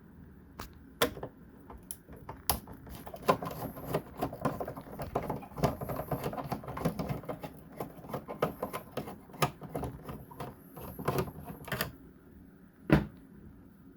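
A screwdriver turning out the screws of a minivan's high-mount brake light housing: a long run of quick, irregular small clicks and scrapes of metal on plastic, with a sharper knock near the end.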